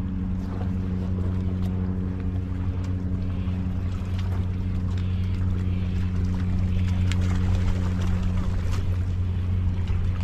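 A boat's engine droning steadily: an even low hum with overtones and no change in pitch, with a few faint ticks over it.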